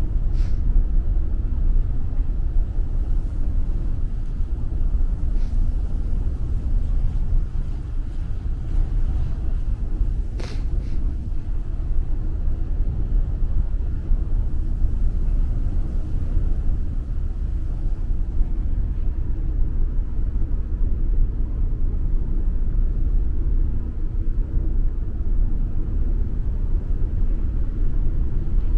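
Steady low rumble on the open deck of the passenger ferry Suzuran running at about 50 km/h: wind on the microphone blends with the ship's engine noise and the rush of its wake. There is a faint click about ten seconds in.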